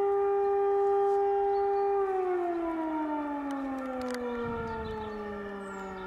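Civil-defence alarm siren sounding the call-out for the volunteer fire brigade: a steady howl that, about two seconds in, begins winding down, its pitch falling slowly and its level dropping.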